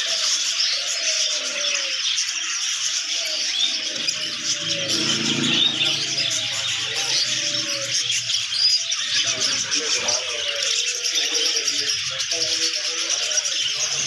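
Many caged birds chirping at once: a dense, continuous twittering, with lower short repeated calls beneath it.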